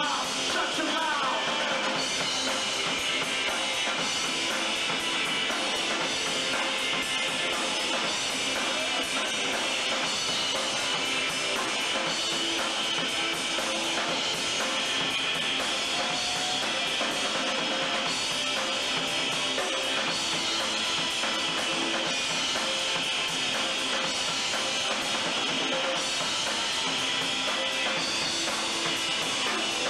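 Live rock band playing: drum kit, electric guitar and bass guitar in a steady, loud passage, with little deep bass in the recording.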